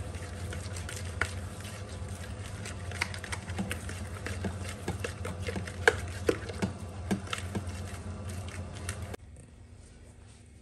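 Tandoori marinade paste being stirred in a plastic mixing bowl: soft wet scraping and squishing with scattered light taps. A steady low hum runs behind it and cuts out suddenly about nine seconds in.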